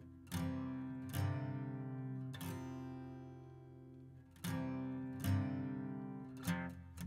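Background music: an acoustic guitar strumming chords every second or two, each left to ring and fade, then several quick strums near the end.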